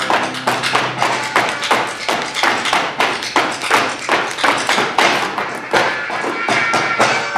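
Two dancers' boot heels and soles stamping and tapping on a wooden stage in fast zapateo (folk footwork from Santiago del Estero), a dense, rapid run of sharp strikes that keeps going throughout. A held musical tone underneath fades out about a second and a half in.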